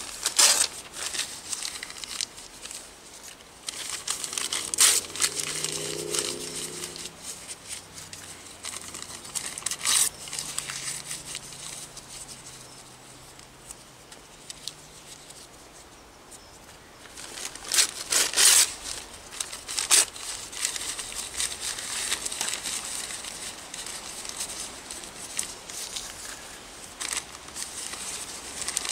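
Newspaper being crumpled and twigs handled and snapped while they are packed into a small stainless steel wood-burning camp stove: a steady crinkling rustle broken by several sharp snaps, the loudest about halfway through.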